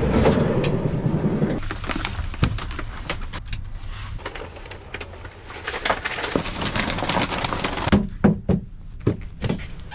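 Knocks, clunks and rustling from movement at a camper van's open side door, over a low steady rumble, with a cluster of sharp knocks near the end.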